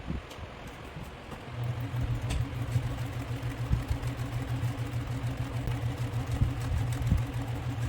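Electric sewing machine running steadily as it stitches a seam, starting up about a second and a half in after a short pause with a few light clicks.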